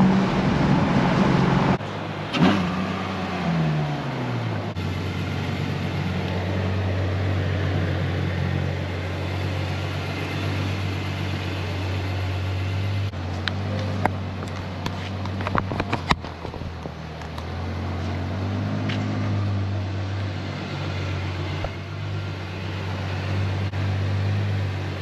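For the first two seconds, a Dodge Challenger SRT Hellcat's supercharged V8 drives at speed, heard from inside the cabin. Then a car engine revs, falls back in pitch over about two seconds and settles into a steady idle, with a few sharp clicks over it about halfway through.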